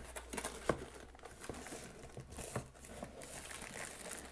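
Cardboard packaging and a plastic bag rustling and crinkling as the box is opened and its contents are pulled out, with a few sharp clicks of handled card.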